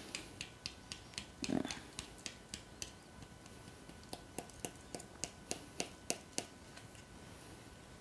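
Fingers tapping and flicking at the pleated dust filter of a Tower cordless handheld vacuum to knock out the dust it has collected. The sound is two runs of quick, sharp clicks, about four a second, with a short pause between them and one duller thump about a second and a half in.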